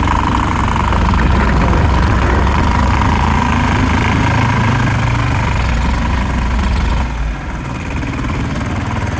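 Tractor engine running steadily while pushing snow with a plow, with a steady high whine over the low engine note; it drops somewhat in level about seven seconds in.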